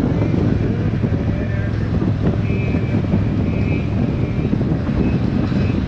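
Motorcycle running at steady road speed, its engine a constant low hum under heavy wind rush on the microphone.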